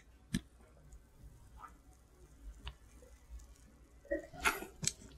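Faint gulping and swallowing as a glass of beer is drunk down in one go: a few soft clicks spread about a second apart, then a louder cluster of gulps near the end.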